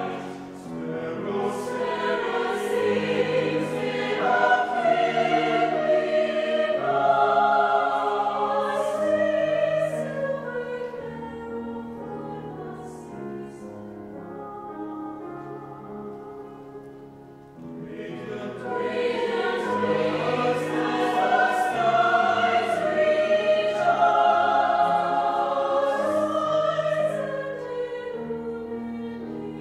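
Mixed-voice chamber choir singing a slow piece in sustained full chords with piano accompaniment. It swells loud, drops to a softer passage around the middle, then swells again before easing off near the end; sharp s-sounds of the words cut through.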